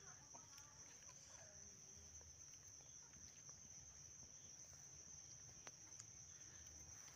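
Faint, steady, high-pitched insect chirring, with a couple of faint clicks near the end.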